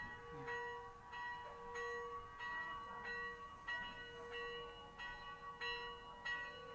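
Background music of bell-like chiming notes, a new note struck a little under twice a second over held ringing tones.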